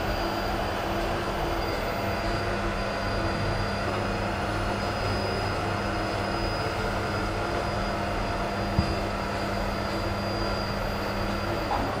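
Vacuum cleaner running steadily with a constant hum and a thin high whine. One short knock comes about nine seconds in.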